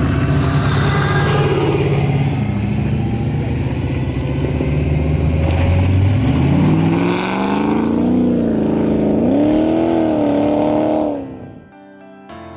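Off-road buggy engine running as it comes down a dirt slope, then revving up with a rising, wavering pitch from about six seconds in. The engine sound cuts off suddenly near the end and soft piano music begins.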